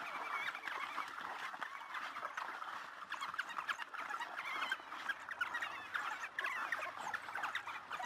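A pack of African wild dogs twittering: many short, high-pitched chirping calls overlapping one another without a break.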